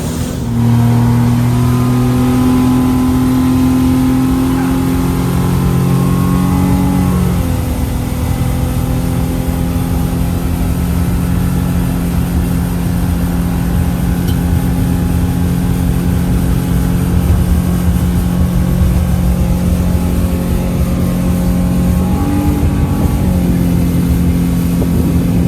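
Motorboat engine running under way, steady and loud, with its pitch rising just after the start, settling lower about seven seconds in, and rising briefly again a few seconds before the end.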